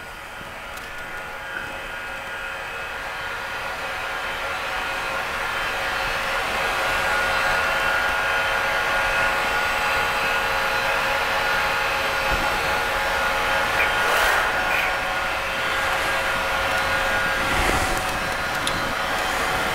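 Large CNC lathe running a turning job: a steady machine whine of several constant tones that grows louder over the first several seconds and then holds, with a couple of faint knocks near the end.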